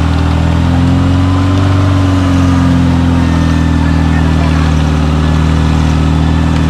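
Off-road 4x4's engine running steadily at high revs as the vehicle is winched through deep mud, its pitch rising and falling slightly a second or two in.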